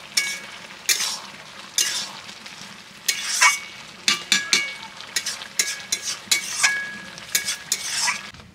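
Long metal spatula scraping around a large metal kadai, stirring soaked masoor dal into a wet mix of kulekhara greens and potatoes, about one stroke a second, with the pan ringing faintly under the scrapes.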